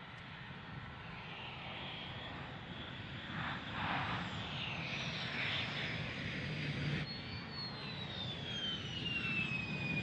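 F-16 Fighting Falcon jet engine noise as the fighter comes in to land, growing louder over the first several seconds. After a sudden cut about seven seconds in, a high jet whine falls steadily in pitch over the engine's roar.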